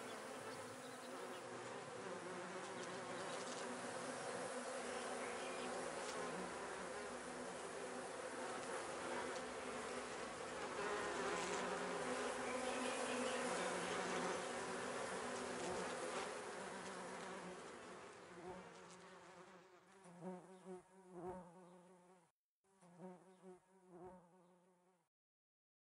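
Honeybees buzzing en masse, a steady dense hum that fades away over the last several seconds, with a few brief swells of single bees buzzing before it cuts off.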